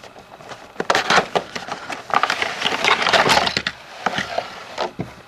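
Cardboard box and plastic packaging handled and pulled open while a toy train is taken out, giving a dense run of crackling, snapping and rustling from about a second in.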